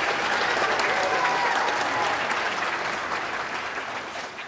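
Congregation applauding, loudest at first and tapering off toward the end.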